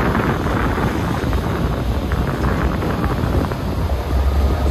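Wind buffeting the phone's microphone on a moving passenger ferry, over the ferry's steady low rumble, which grows stronger near the end.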